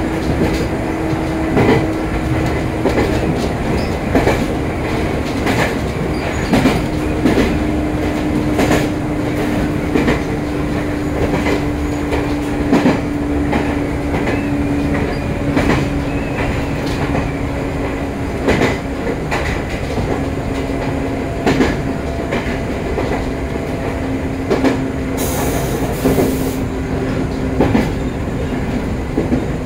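Joshin Electric Railway train running along the Joshin Line, its wheels clicking over rail joints every second or two. Under the clicks a steady hum sinks slowly in pitch. A brief hiss comes about 25 seconds in.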